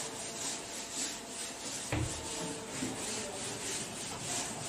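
Whiteboard duster rubbing across a whiteboard in repeated back-and-forth strokes, wiping off marker writing, with a short knock about two seconds in.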